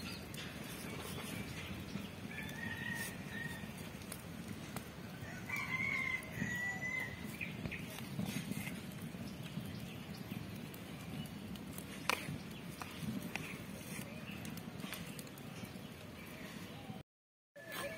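Outdoor background hiss with a bird calling twice, a short call about two and a half seconds in and a longer one around six seconds. A single sharp click comes near twelve seconds, and the sound cuts out briefly near the end.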